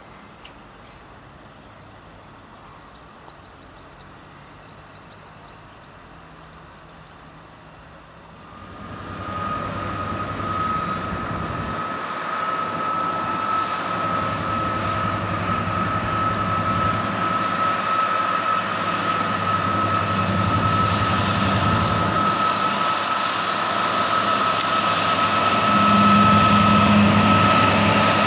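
Euro Cargo Rail Class 77 (Class 66-type) diesel-electric locomotive approaching, its two-stroke V12 diesel engine running with a steady high whine. The sound comes in out of a quiet background about a third of the way in and grows louder toward the end.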